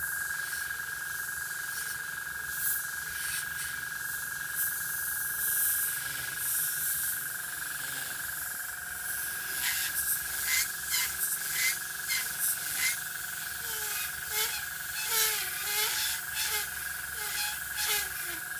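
Airbrush hissing as it sprays paint. In the second half the hiss comes in many short bursts as the trigger is worked for fine detail. A steady high-pitched whine starts at the beginning and runs underneath.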